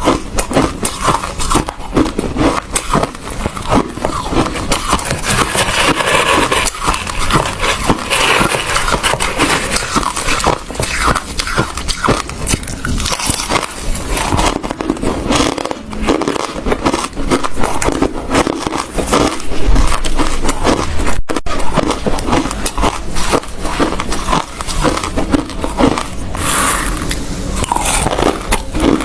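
Close-miked crunching of hard ice being bitten and chewed: a dense, unbroken run of sharp cracks and crackles.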